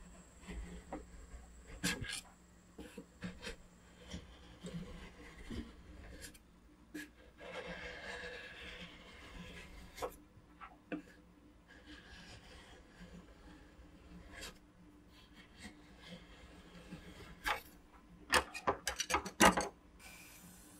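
Metal spatula scraping rolled ice cream off a frozen steel ice-cream pan, a rasping scrape as each thin sheet curls into a roll, with sharp clicks of the blade on the pan. Near the end comes a quick run of loud metal clacks.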